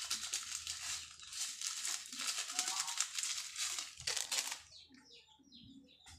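A plastic seasoning packet crinkling as it is handled, stopping about four and a half seconds in. After that, faint bird chirps.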